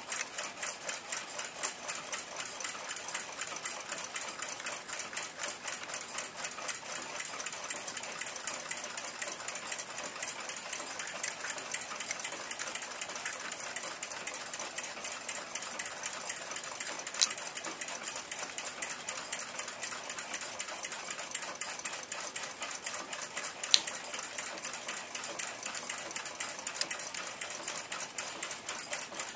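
Fast, steady clockwork ticking. Two sharper single clicks come a little past the middle and again later.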